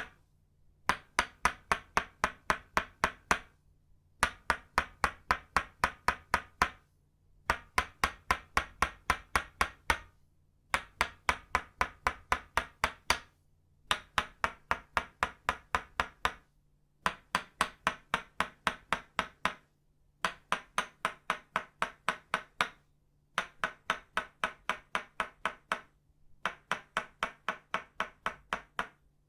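Tok sen set of itauba wood, the wooden mallet tapping the wooden stake in quick, ringing strikes. The taps come in runs of about eight or nine, roughly three to four a second, each run followed by a brief pause before the next.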